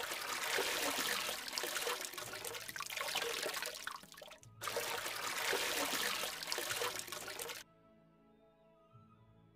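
Cartoon sound effect of rushing, bubbling water as a character goes under, in two long stretches with a short break between them, over soft background music. A little before the end only the faint music is left.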